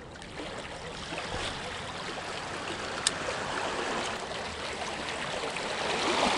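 Small sea waves lapping and washing against the rocks, a steady wash that grows louder toward the end, with a single sharp click about three seconds in.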